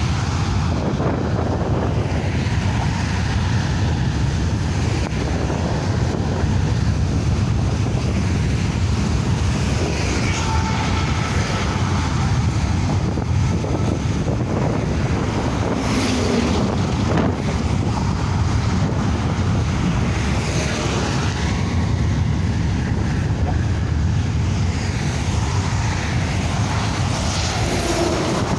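Wind buffeting the microphone over a steady rumble of road traffic and a freight train of hopper wagons rolling by on the rail deck. A lorry passes close by near the end.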